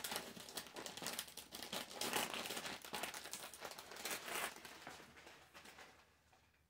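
Rustling and crinkling of material being handled, dense and irregular at first, then dying away near the end.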